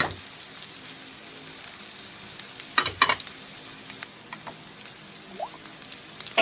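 Sliced red onions and ginger sizzling as they sauté in hot oil in a pan, a steady frying hiss. A few sharp clicks come about three seconds in.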